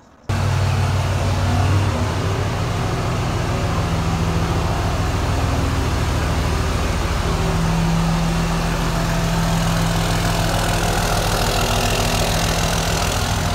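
A 2003 Dodge Ram pickup's engine idling steadily.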